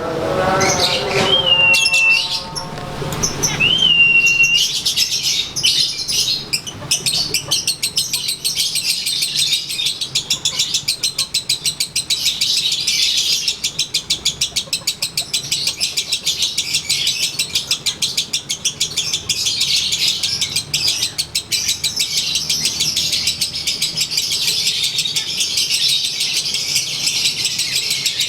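Konslet-style lovebird ngekek: two short whistled notes, then a long, unbroken, very rapid high-pitched chattering trill. A lower-pitched call is heard at the start.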